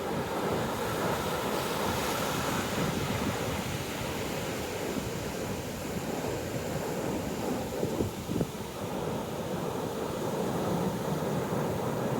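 Big ocean surf breaking and washing up the beach, a steady rushing noise, with wind buffeting the microphone and a couple of brief thumps about eight seconds in.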